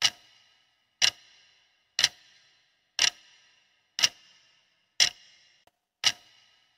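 Clock-tick sound effect marking the seconds of a quiz countdown timer: one sharp, ringing tick each second, seven in all.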